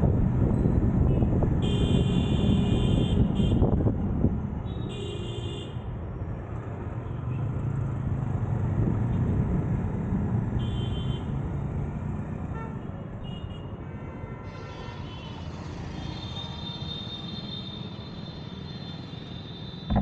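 City road traffic heard from a moving ride: a steady low rumble of engines and tyres, louder for the first few seconds, with vehicle horns honking briefly about two, five and eleven seconds in.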